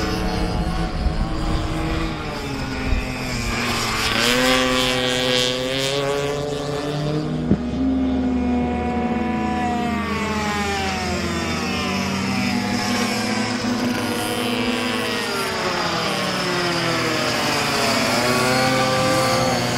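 Several small minimoto racing engines revving high, their pitch climbing as the bikes accelerate and dropping as they brake and pass by, with more than one engine heard at once.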